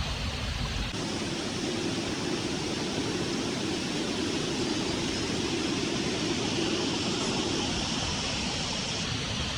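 Waterfall rushing: a steady, full noise of falling water. About a second in the sound changes suddenly from a low rumble to a brighter rush.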